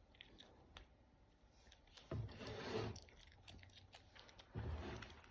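Small plastic miniature toy pieces and their packaging being handled: a few light clicks, then two louder rustling handling noises about two seconds in and near the end.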